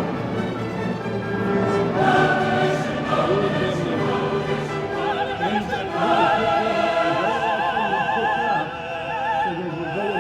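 Operatic classical music: singers with strong vibrato over an orchestra, with several voices together.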